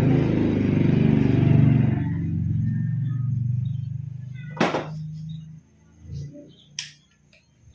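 A motor vehicle engine passing close by, loud at first and then fading away over about five seconds. Two sharp clicks follow, a little under five seconds in and again about two seconds later.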